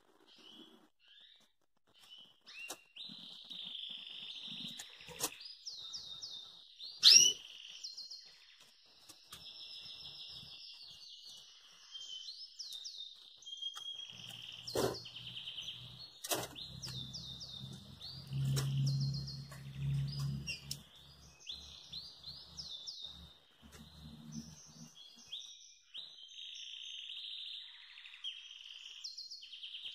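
Finch singing a long, rolling canary-like song of rapid trills and chirps with hardly a break, with a few sharp ticks, the loudest about seven seconds in. A low hum sits under the song through the middle.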